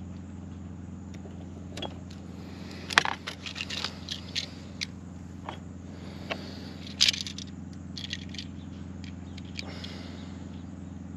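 Scattered sharp metallic clicks and scrapes from handling wire strippers and a GFCI receptacle, loudest about three seconds in and again about seven seconds in, over a steady low hum.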